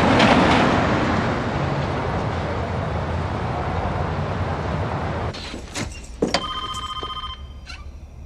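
City street traffic noise, an even hiss that fades away after about five seconds. Then the clicks and knocks of a door being unlocked and opened, with a short electronic tone lasting about a second in the middle.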